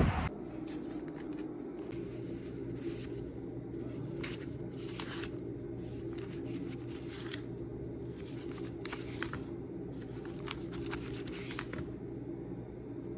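Paper film-negative envelopes being handled and leafed through, giving scattered short rustles over a steady low hum.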